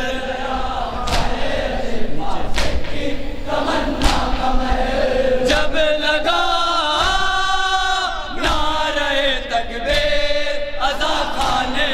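A group of men chanting a noha, an Urdu mourning lament, with a lead reciter and the others singing along in held, wavering lines. Irregular sharp thuds of chest-beating (matam) come through the chanting.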